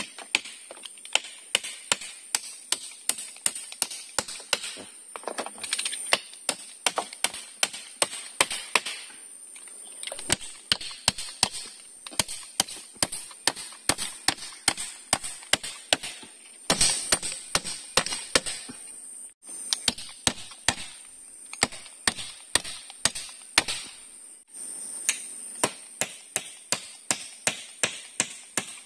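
Claw hammer driving nails into bamboo poles and timber, sharp strikes about two to three a second, broken by a few short pauses. A steady high-pitched insect drone runs underneath.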